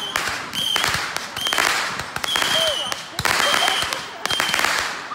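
Aerial fireworks firing a rapid string of shots, roughly one every half second to second. Each launch is a sharp pop followed by a fizzing hiss and a short high whistle as the shot climbs.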